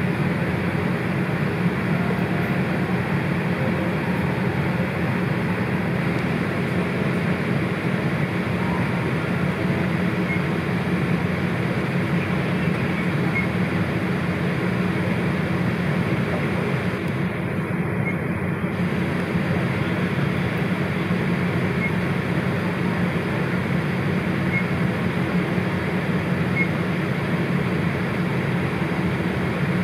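Steady cabin noise inside a Boeing 787-8 Dreamliner on the ground: a constant rush of air with a low hum.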